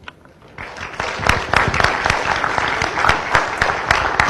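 An audience applauding, starting about half a second in and quickly building to steady clapping.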